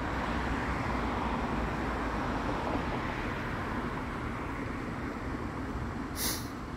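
Steady rumble of city road traffic, with one short hiss about six seconds in.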